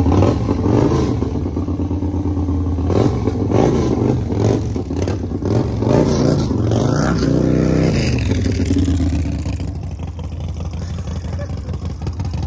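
Custom bagger motorcycle's engine revving again and again, its pitch rising and falling as the bike pulls out at low speed, then settling to a steady idle for the last few seconds.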